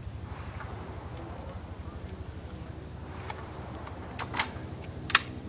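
Shooting-range ambience: a steady low rumble with a few sharp cracks of gunfire, two close together about four seconds in and a louder one near five seconds.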